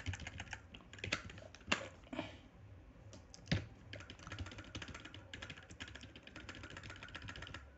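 Typing on a computer keyboard: a run of quick key clicks, with two louder keystrokes and a short lull between them.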